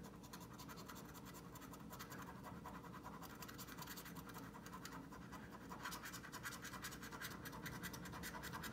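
A coin scraping the coating off a scratch-off lottery ticket in rapid short strokes, faint, growing a little louder in the last few seconds.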